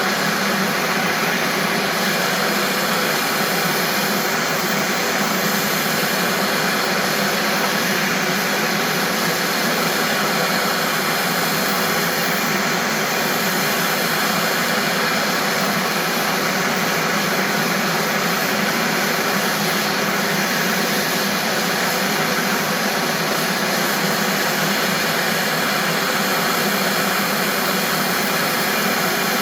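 A machine running steadily and without a break, a loud even whooshing hiss with a few steady tones in it and little low rumble.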